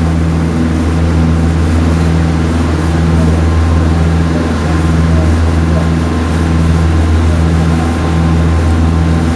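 Boat engine running steadily under way: a loud, deep drone with a regular throb repeating a little faster than once a second, over a hiss of wind and water.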